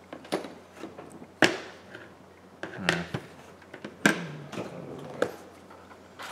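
About half a dozen sharp clicks and knocks of a small screwdriver and iPhone 11 parts being handled and set down on a work mat, the loudest about a second and a half in.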